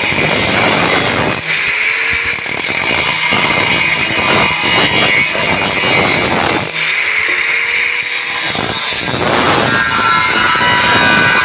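Harsh rasping noise of metal being cut, a dense run of scraping strokes, with a pattern that repeats about every five seconds.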